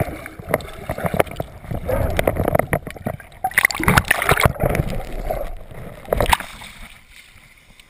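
Muffled rushing water and bubbles heard through an action camera held underwater, with frequent sharp knocks and clicks on the camera housing. It dies down near the end.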